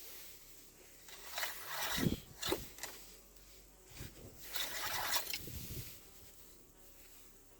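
Handling noises during an engine oil-level check: rustling and scraping in two bursts, with a couple of dull knocks about two seconds in.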